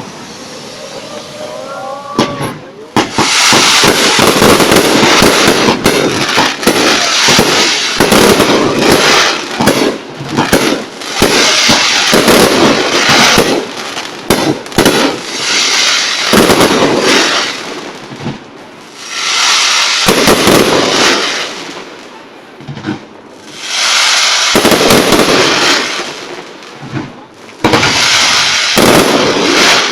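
Fireworks display: rapid volleys of bangs and crackling shells bursting overhead, quieter at first and then dense from about three seconds in, with a few brief lulls between salvos.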